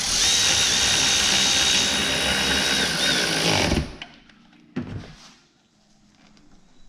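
Cordless power driver running in and tightening a bolt through the seat track into the seat bottom: a steady motor whine for nearly four seconds that stops abruptly, followed by a brief knock about a second later.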